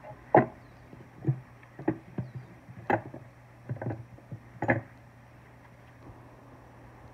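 Hand tools and a wooden tray being handled inside a wooden toolbox: short knocks and clunks of metal spokeshaves and wood against wood, about seven in the first five seconds.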